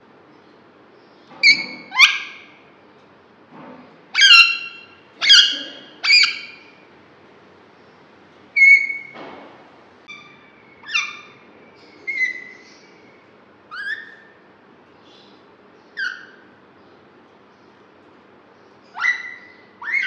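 Alexandrine parakeet giving short, sharp calls about a dozen times at irregular intervals, with the loudest run in the first six seconds.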